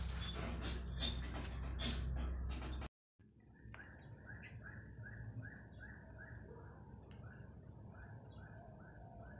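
Steel trowel scraping and knocking in sand-cement mortar in a plastic bucket, with a steady low rumble. After a brief dropout about three seconds in, the mixing is no longer heard and a bird calls over and over, about twice a second, with a few higher chirps and a steady high whine.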